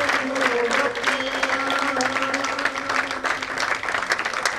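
Audience applauding, many hands clapping in a dense patter, with a held musical note underneath that fades out about three seconds in.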